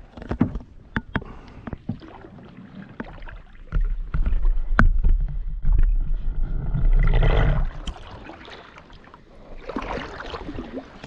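A canoe being paddled: several sharp knocks against the hull early on, a loud low rumble from about four to eight seconds in, and swishes of water from the paddle strokes.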